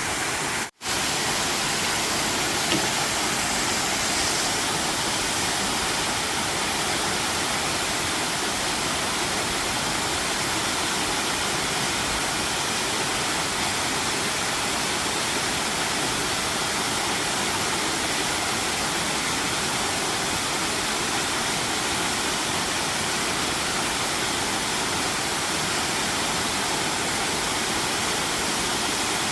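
Waterfall rushing steadily, a dense even roar of falling water. The sound cuts out for a split second about a second in, then resumes unchanged.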